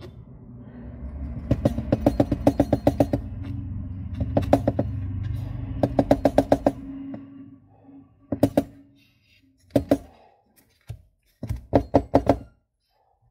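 Quick runs of light knocks, about six a second in bursts of several, as a plastic toner bottle is tapped and shaken to pour toner powder through its nozzle into a laser-printer toner cartridge. A low steady hum underneath fades out about halfway through.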